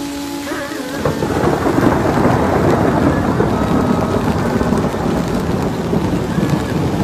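Rain falling with a long, loud rumble of thunder that sets in about a second in and rolls on steadily.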